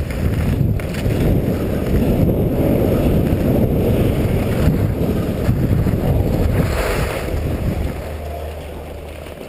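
Wind rushing over the action camera's microphone while sliding fast down a groomed snow slope, with the scrape of sliding on packed snow underneath. It eases near the end as the slide slows at the lift.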